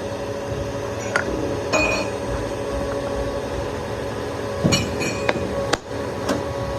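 Metal parts clinking and knocking, a handful of sharp strikes with a cluster about five seconds in, over the steady hum of workshop machinery.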